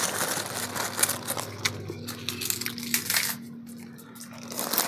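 Plastic bag of kerupuk crackers crinkling as a hand rummages in it, with the crisp crackle of the dry crackers. It eases off a little past three seconds in and picks up again near the end.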